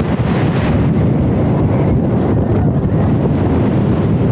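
Wind roaring over the microphone on a wooden roller coaster ride at speed, over the train's rumble on the track.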